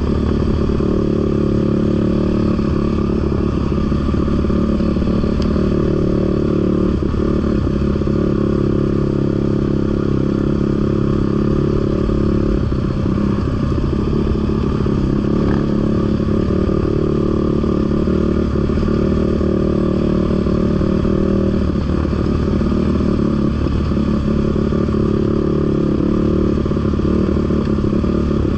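Off-road vehicle engine running at a fairly steady speed while riding on a trail, with small wavers in pitch now and then.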